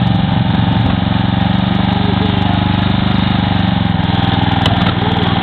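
Small petrol engine of a hydraulic rescue-tool power unit running steadily at an even pitch. A single sharp click sounds near the end.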